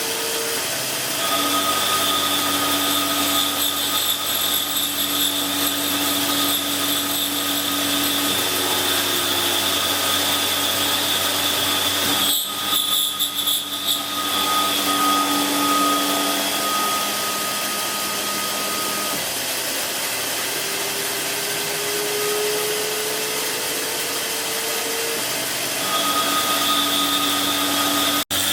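A small benchtop milling machine converted to CNC runs a cut: steady motor and cutting noise with whining tones that come and go. There is a rougher, noisier stretch about twelve seconds in, and a tone that slowly rises a little past the twenty-second mark.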